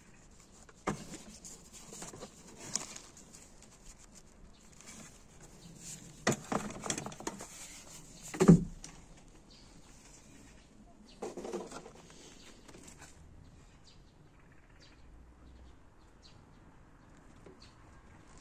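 Rummaging through junk in a dumpster: scattered rustles, clatters and knocks of items being handled and moved, with one loud knock about halfway through.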